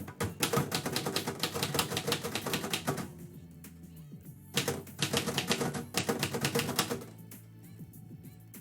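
Typewriter keys striking in two fast runs of typing separated by a pause of about a second and a half.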